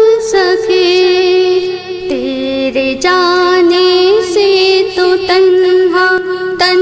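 A woman singing long, held notes with a wavering vibrato, sliding between pitches, with musical accompaniment, in a devotional song.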